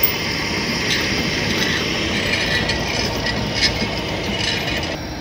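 A heavy tow truck's diesel engine running steadily, with a hiss and a few faint clicks over it.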